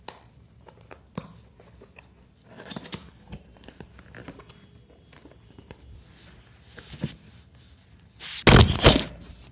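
Packaging of a boxed pocket Wi-Fi router being handled: scattered clicks and taps of cardboard and plastic, then a loud burst of plastic-film crinkling near the end.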